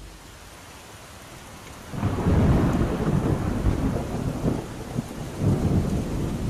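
Heavy rain falling, with thunder rumbling under it. The sound comes in loud about two seconds in, and the deep rolls swell twice.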